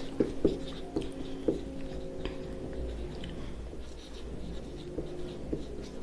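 Marker pen writing on a whiteboard: a run of short strokes and taps as words are written, over a faint steady hum.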